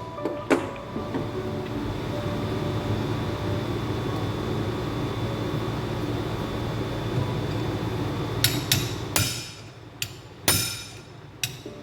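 Ball-peen hammer striking a chisel against metal: a worn alternator bearing's leftover race being cut off the rotor shaft. There are sharp single blows about half a second in and several more in the last three seconds, with a steady noise between them.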